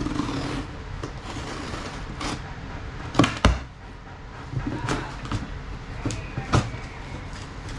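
Cardboard shipping box being handled and opened: rustling and scraping, with several sharp knocks and taps, the loudest a pair about three seconds in and another past six seconds.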